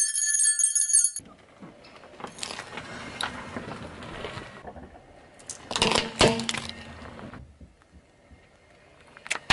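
A small jingle bell inside a rubber knot ball rings as the ball is shaken, a bright jingle lasting about a second. About six seconds in, a short burst of crunching and cracking comes as the ball is crushed under a car tyre.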